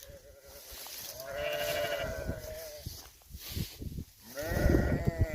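Sheep bleating: one long, wavering bleat about a second in, and another beginning near the end.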